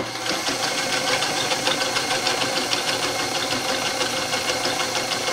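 Vintage Universal electric sewing machine running steadily, stitching through heavy camouflage fabric with a fast, even clatter of the needle.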